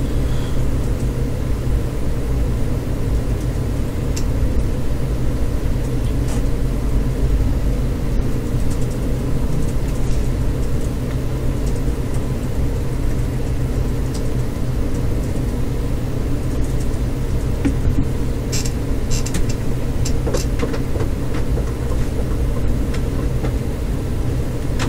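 A steady low rumble and hum of background noise, with a few faint clicks about three-quarters of the way through.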